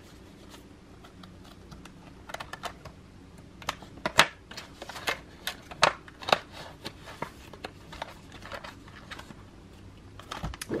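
A thick wad of paper banknotes rustling and crackling as hands work it into a clear plastic zipper pouch in a ring binder, with irregular crisp snaps and clicks, the loudest about four seconds in.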